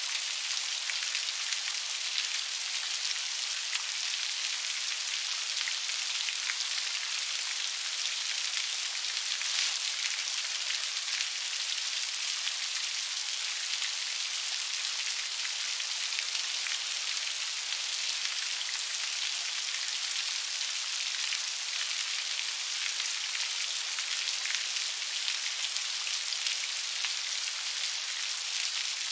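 Steady rain falling, an even hiss of many fine drops pattering on a surface.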